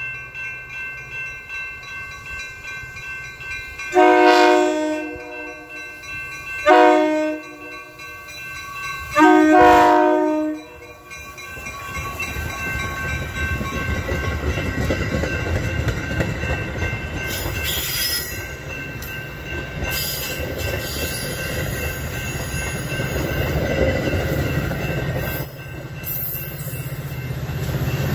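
Metra push-pull commuter train approaching cab car first: its horn sounds a chord in three blasts, the third the longest. Then the bilevel coaches roll past with a steady rumble and wheel clicks, louder near the end as the diesel locomotive at the rear comes closer.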